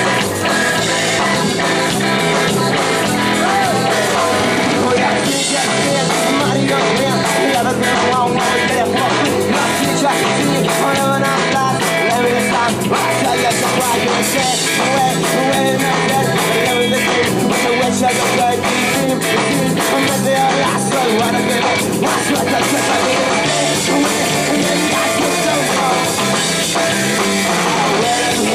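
Live rock band playing loud punk rock, with a singer.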